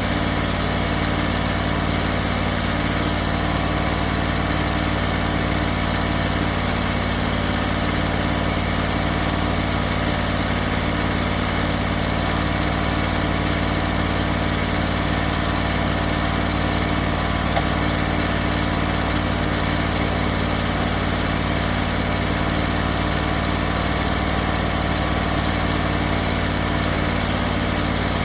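An engine running steadily at one constant speed, likely the engine that drives a portable hydraulic sawmill's hydraulic pump.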